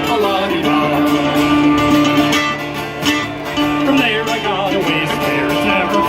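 Music: a guitar-led song in country style, with singing.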